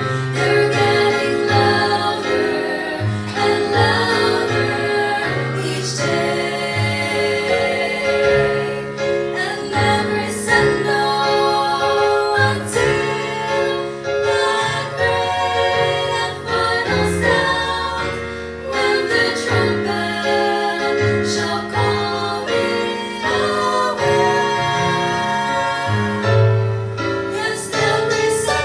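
A vocal trio singing a gospel song in harmony over instrumental accompaniment with a bass line and drums.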